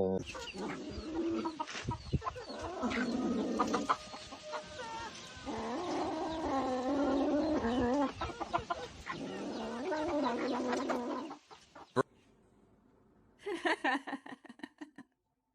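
Animal calls: three drawn-out, wavering calls of one to two seconds each, among scattered clicks and knocks, ending in near silence.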